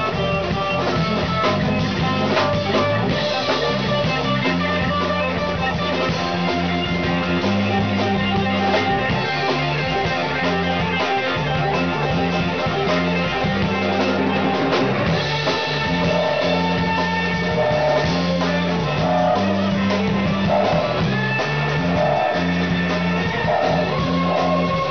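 Live R&B band playing a groove on electric guitar, bass and drum kit, with held horn notes from the trumpet and saxophones coming in about halfway through.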